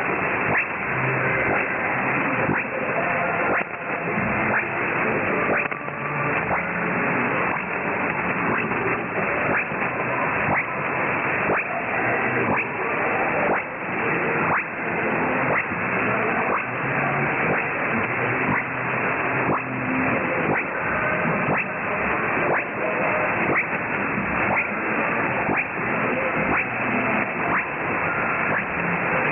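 Shortwave receiver audio on 4810 kHz in lower-sideband mode: steady band noise with frequent static crackles, all cut off above about 3 kHz by the narrow receiver filter. Faint traces of a weak station are buried under the noise.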